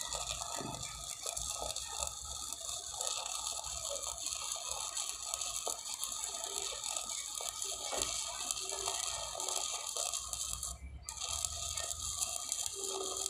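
Stick (shielded metal arc) welding on a steel gusset plate: a steady crackling, frying arc that briefly cuts out near the end.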